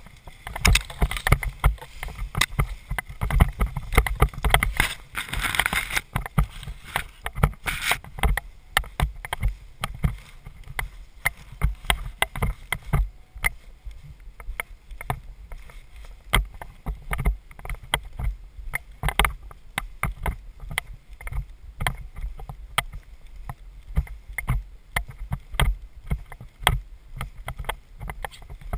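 Footsteps of a person walking, heard from a head-mounted camera as a steady run of low thumps and sharp clicks. For the first several seconds they brush through tall dry grass with a rustling swish, which fades once the steps reach a bare dirt track.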